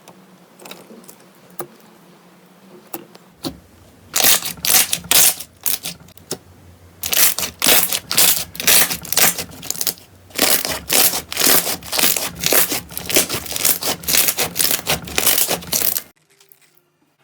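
Slime being squeezed and pressed, making quick sticky clicks and crackles. The clicking is sparse at first, turns dense and loud about four seconds in, and stops shortly before the end.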